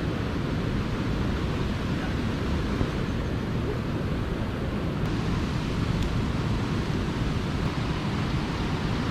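Waterfall rushing in a steady roar of falling water, heard from right at the top of the falls.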